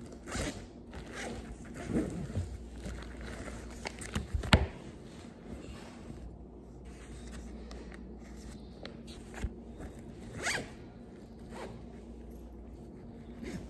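Zipper of a fabric bag being pulled, with rustling and handling of the bag and its contents and several sharp clicks, the loudest a little after four seconds in.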